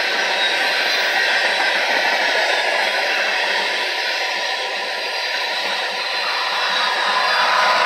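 Freight train's tank cars and covered hopper cars rolling past close by: a steady rushing of steel wheels on rail.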